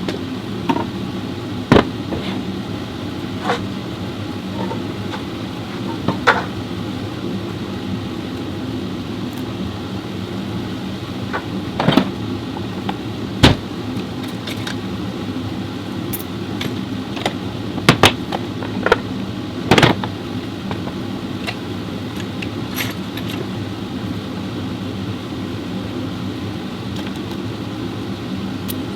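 Chevrolet Orlando diesel engine idling steadily, with scattered sharp clicks and knocks of metal over it.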